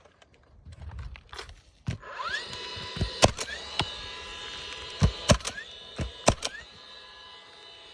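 Roof repair work on asphalt shingles: a steady mechanical hum with brief rising whines starts about two seconds in, and over it come about six sharp knocks in quick groups.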